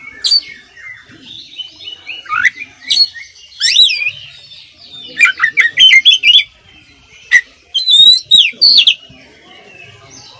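Oriental magpie-robin (kacer) singing: a varied, rapid song of short whistled notes sweeping up and down in pitch, packed with many different phrases. It starts sparse and quieter, and from about halfway through comes a loud, dense run of phrases.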